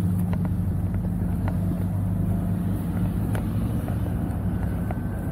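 Road traffic on the street alongside: the engines and tyres of passing and queued cars as a steady low drone.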